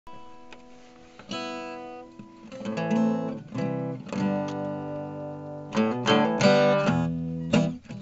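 Background acoustic guitar music: plucked notes, sparse at first, growing into fuller, louder playing from a few seconds in.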